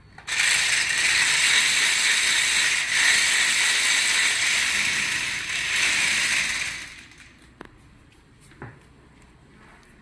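Toy stunt RC car's small electric motors and plastic gearboxes whirring loudly as its wheels drive it over a hard stone floor, stopping about seven seconds in; two faint clicks follow.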